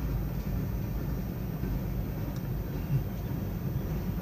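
Norfolk Southern mixed freight train rolling past: a steady low rumble.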